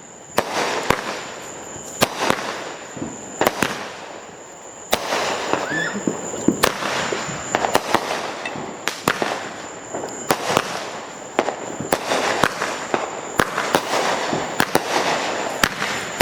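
Consumer fireworks going off: a dense run of sharp cracks and pops over a continuous crackle, growing louder and busier about five seconds in.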